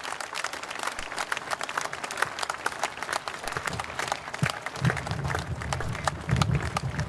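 Large audience applauding: dense, irregular clapping. A low rumble joins about halfway through.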